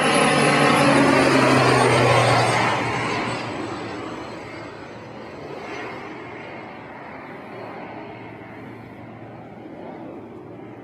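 Crop-dusting airplane passing low overhead, its engine and propeller loudest in the first two seconds or so. The sound then drops in pitch and fades as the plane moves away.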